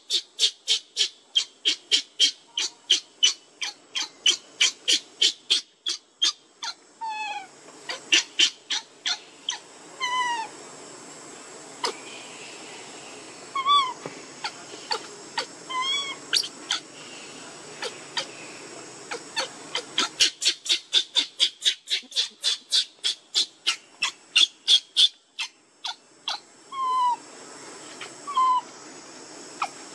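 Baby macaque crying: rapid shrill squeals about three a second, with a few short wavering whimpers in between. The calling thins out in the middle and comes back in a quick run later on.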